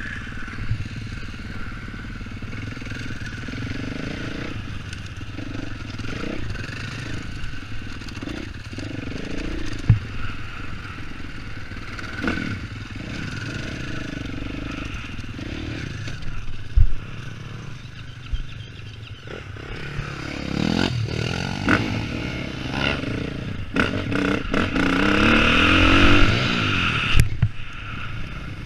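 Dirt bike engine running at an easy pace on a motocross lap, heard from a helmet-mounted camera. It revs up twice near the end, rising in pitch and getting louder, and there are occasional sharp knocks and clatter over the rough ground.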